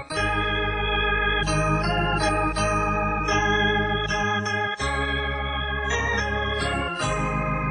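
Electronic church organ playing sustained chords that change every second or so, with a deep bass line under them.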